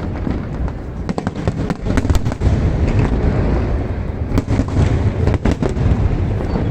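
Large aerial fireworks display: a dense run of sharp bangs and crackles over a continuous low rumble, with clusters of sharper reports about two seconds in and again from about four and a half to five and a half seconds in.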